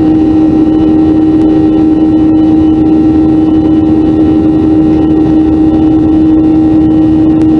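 Boeing 737-400's CFM56-3 turbofan engines and rushing airflow heard from inside the cabin in flight: a loud, steady drone with a strong steady hum-like tone running through it.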